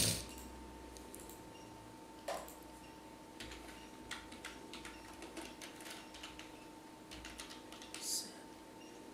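Computer keyboard typing: a run of quick, irregular key clicks, with a few louder clicks among them.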